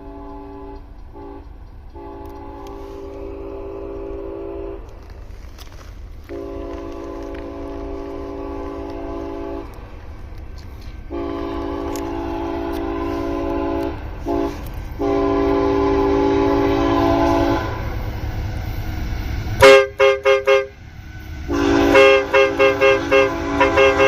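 Approaching CSX freight locomotive's multi-chime air horn sounding a series of long blasts with one short blast before the last, the grade-crossing signal, growing louder as the train nears. About twenty seconds in, much louder horn blasts cut in, chopped into quick pulses several times a second.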